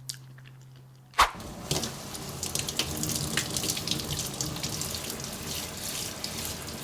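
A kitchen tap opens with a sharp click about a second in, then water runs and splashes unevenly into the sink.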